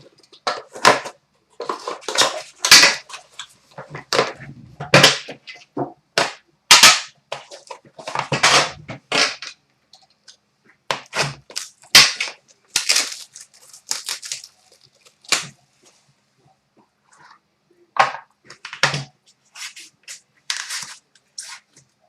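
Trading-card box packaging being torn open and handled: a string of sharp crinkles, snaps and rustles, busiest in the first half, with a short lull later on.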